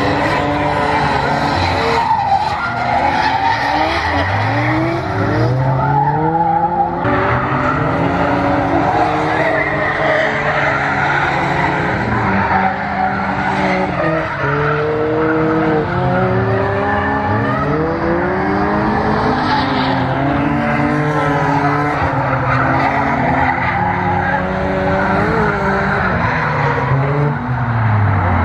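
Drift cars on track: engines revving up and falling back again and again, over a steady hiss of sliding tyres.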